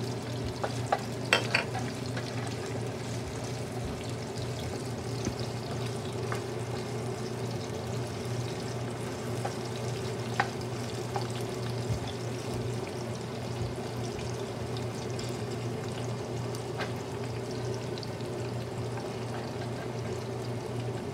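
Diced onions and garlic sizzling steadily in oil in a nonstick frying pan, stirred with a wooden spatula, with a few sharp taps in the first two seconds. A low steady hum runs underneath.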